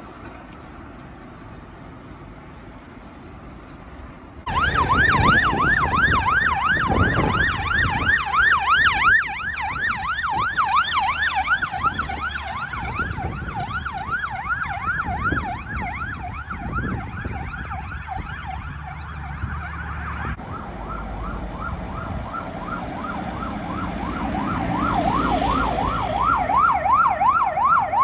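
Emergency vehicle siren on a fast yelp, sweeping up and down about four times a second. It starts suddenly about four seconds in over faint traffic noise. About twenty seconds in it gives way to a lower-pitched, faster yelp that grows louder toward the end.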